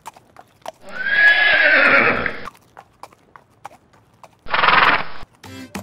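A horse whinnying in one long call about a second in, then a shorter second call near the end, with light hoof clip-clops between.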